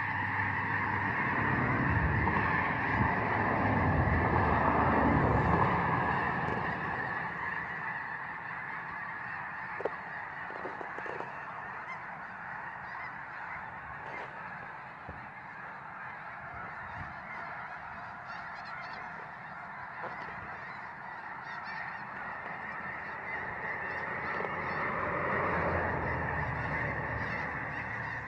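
A massive flock of snow geese calling: thousands of overlapping honks blending into one continuous clamour. A low rumble swells in the first few seconds and again near the end.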